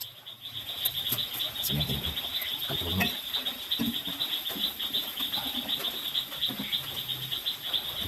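A steady chorus of night insects chirping in fast, even pulses. Over it come faint clicks and soft scrapes from a knife and fork cutting into a roast chicken in a metal pan.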